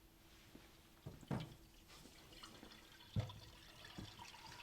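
Faint water dripping and trickling as the aquarium plumbing drains back after the return pump is switched off, with a few soft knocks.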